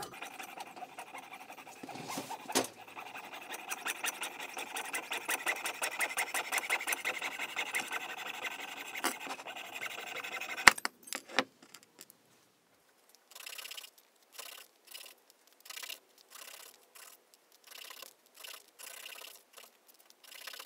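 Jeweler's saw cutting through metal tubing held in a tube-cutting jig: fast, even rasping strokes for about ten seconds that end in a sharp click. After a short pause, small cut tube slices are rubbed on sandpaper in short, separate scrubbing strokes to smooth the burrs.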